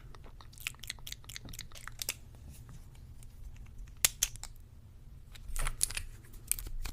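Close, quiet handling sounds: scattered small clicks, taps and crinkly rustles, irregular throughout, with a denser rustle about five and a half seconds in.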